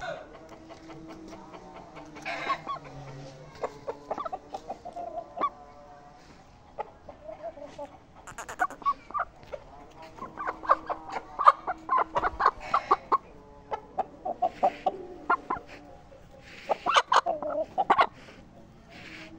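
Aseel chickens clucking: runs of short, quick calls, coming thickest about ten to thirteen seconds in and again near the end.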